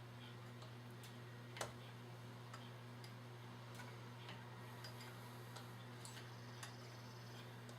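Faint, irregular light clicks of a small tool on metal as the scope ring screws of a rifle scope are tightened, one sharper click about a second and a half in, over a steady low hum.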